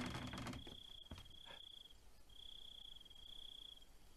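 Crickets chirping faintly in long, high, unbroken trills a second or more each, with short gaps between them; a couple of soft knocks in the first half.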